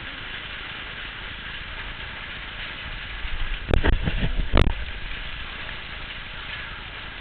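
Steady rushing noise of a hail and wind storm, with a cluster of three or four loud thumps about halfway through.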